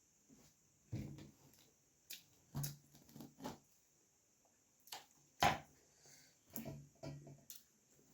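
Close-miked eating sounds of puri being chewed: irregular wet mouth clicks and smacks, the loudest about five and a half seconds in.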